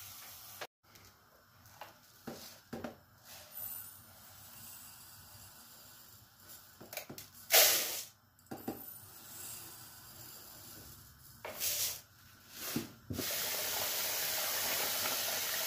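Light knocks and a short rush of dry rice poured from a glass into a plastic bowl, then a kitchen tap runs steadily into the bowl of rice from about 13 seconds in.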